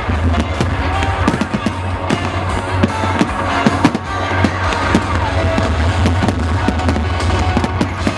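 Fireworks bursting, with many sharp bangs and crackles throughout, over music from the display's sound system.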